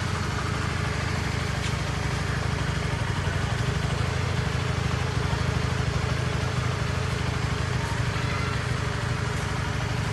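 Honda Sonic 150's single-cylinder fuel-injected engine idling steadily.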